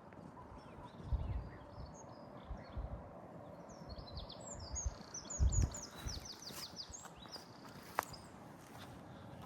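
A songbird singing, with short high chirps and then a quick run of falling notes in the middle. Low thumps sound about a second in and again midway, loudest near the middle, with a single sharp click near the end.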